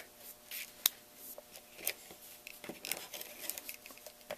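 Cardstock being handled and pressed down while adhesive is run onto it with a tape runner: scattered light clicks and short papery rasps, with one sharper click a little under a second in.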